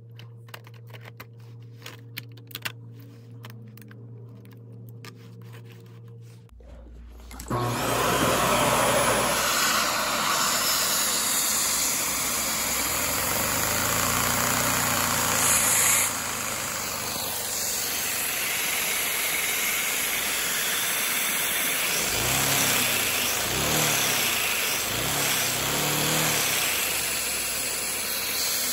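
Light clicks of LEGO parts being handled over a low hum. About six to seven seconds in, the vacuum cleaner switches on and the LEGO boxer-twin vacuum engine runs fast under a loud, steady rush of suction air. Near the end the pitch rises and falls a few times.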